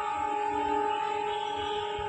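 ALCO WDG-3A diesel locomotive's horn sounding one long, steady blast.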